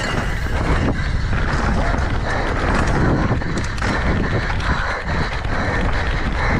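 Mountain bike riding fast over a rough dirt trail: wind rushing over the camera microphone, with tyres crunching and the bike rattling and knocking over rocks and roots.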